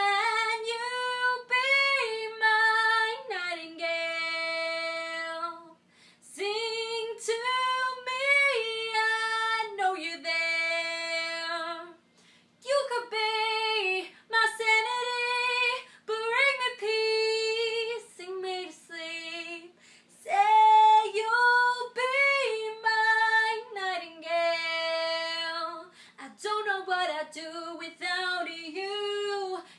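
A solo female voice singing a pop ballad in phrases of a few seconds each, with long held notes that waver and short pauses for breath between phrases.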